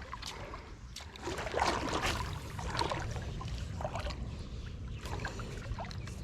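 Creek water sloshing and splashing in irregular swells, loudest from about a second and a half to three seconds in, with scattered small clicks and knocks.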